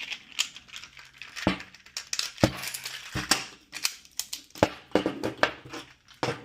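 A .357 Magnum revolver being reloaded quickly by hand with an 18-round loader: a rapid series of sharp metallic clicks, clacks and clinks as the cylinder is opened, charged with rounds and closed.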